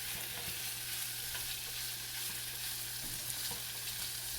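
Pre-boiled, spice-marinated chicken pieces sizzling as they shallow-fry in a little oil in a pan, with a steady hiss and a few faint clicks.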